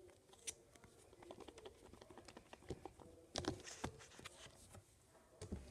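Fingers handling and tapping a small plastic slime tub and its lid: faint scattered clicks and taps, with a brief cluster of louder taps about three and a half seconds in.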